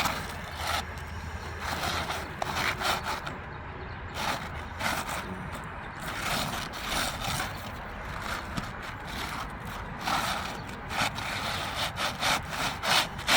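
Asphalt roofing shingles scraping and rubbing in a run of irregular strokes as a replacement shingle is worked into place under the course above.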